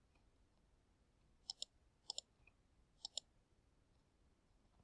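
Computer mouse clicking: three quick pairs of clicks, the first about a second and a half in, the last about three seconds in, faint over near silence.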